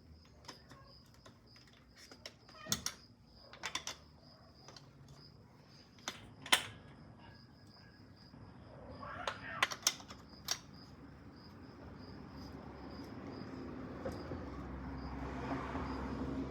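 Scattered sharp metal clicks and clinks of a wrench working loose the axle nuts on a bicycle wheel, with a cluster of quick clicks about nine to ten seconds in. A faint, rapidly pulsing high tone sits underneath, and a low rumbling noise builds toward the end.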